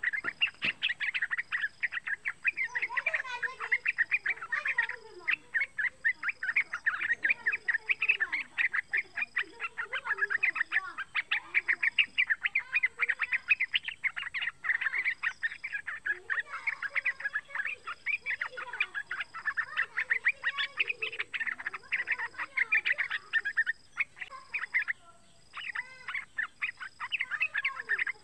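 Young yellow-vented bulbul (trucukan) singing a continuous fast, chattering warble, broken only by short pauses, the loudest near the end. A faint high note repeats about every second and a half behind it.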